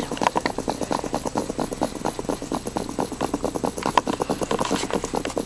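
A sleeping pet snoring in a fast, even rhythm of short pulses, about eight a second.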